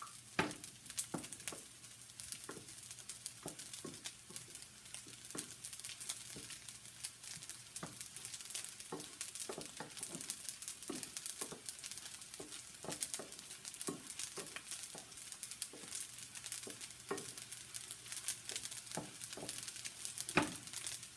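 Shrimp sizzling as they fry in a small frying pan, with a wooden spoon stirring them and clacking and scraping against the pan at an irregular pace.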